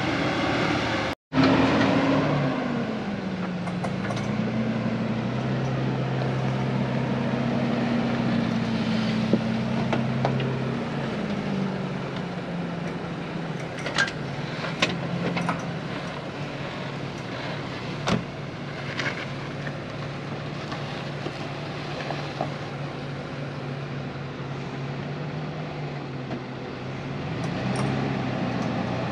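Titan-swapped Nissan Xterra's V8 engine pulling at low revs as the truck crawls up a steep, sandy climb. The engine is revved hardest just after the start, settles into a low, steady pull, and picks up again near the end. A few sharp clicks sound around the middle.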